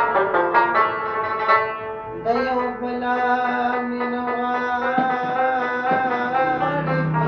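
Rabab playing a Pashto song: a fast run of plucked notes, then from about two seconds in, long held notes that waver and slide in pitch, with a man singing along.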